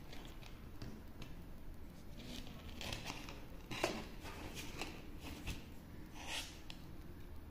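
Handling noise from plastic helmet intercom units being picked up and turned over in the hands: a series of scrapes and rustles, with a sharp click about four seconds in.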